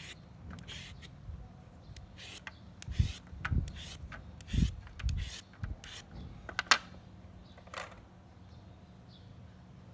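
Vegetable peeler scraping the skin off a raw potato in short, irregular strokes, with a sharp click near seven seconds in; the scraping stops about eight seconds in.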